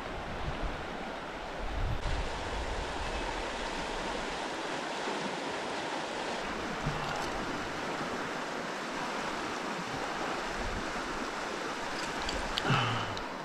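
Steady rush of river water flowing, with a couple of brief low thumps, one about two seconds in and one near the end.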